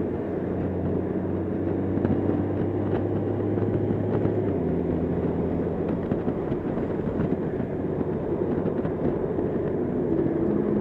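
Honda Gold Wing motorcycle's flat-six engine humming at highway cruising speed under steady wind and road noise, its low note shifting slightly about four and a half seconds in.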